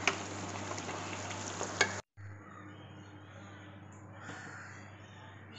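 Thick chicken curry sizzling and bubbling in a pan while being stirred, with a couple of sharp spatula clicks against the pan. The sound cuts off abruptly about two seconds in, leaving faint room tone with a low hum.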